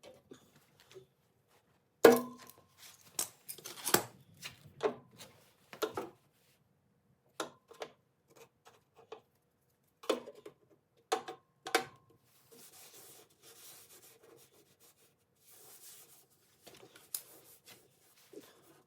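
Metal tools knocking and tapping on the steel body panel of a 1984 SAAB 900 during dent repair: about ten irregular strikes, the loudest about two seconds in with a brief metallic ring. Later there are a few seconds of soft rubbing or scraping noise.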